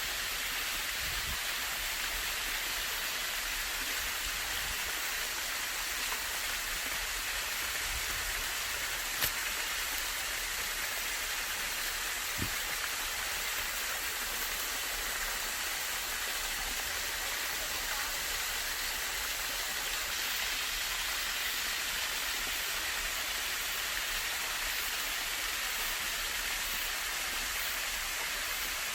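Mountain stream rushing steadily over rocks, with a single sharp click about nine seconds in and a faint knock a few seconds later.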